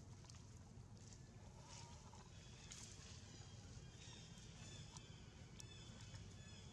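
Near silence: faint outdoor background noise, with a few faint high chirps in the second half.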